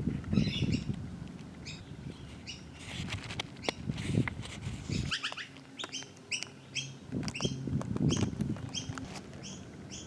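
A bird calling in quick runs of short, repeated high notes, over low rustling and handling noise.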